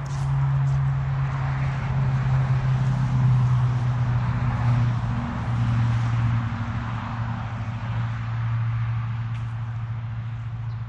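An engine running steadily at an even low speed, with no revving.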